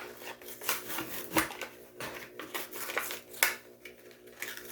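Handling noise from a die-cast toy car being turned over in the hands: irregular light clicks and short rustles, a few sharper ones, over a faint steady hum.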